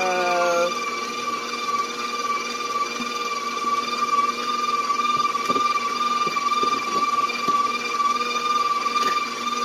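Electric mixer running at a steady speed with a constant motor whine, creaming butter and sugar for a pound cake batter, with a few faint ticks from the beaters against the bowl near the middle.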